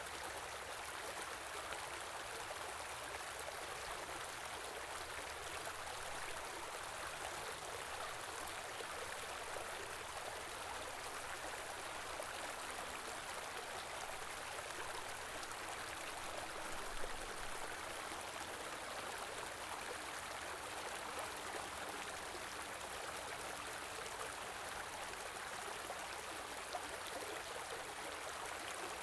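A stream of flowing water babbling steadily, with a brief low thump about halfway through.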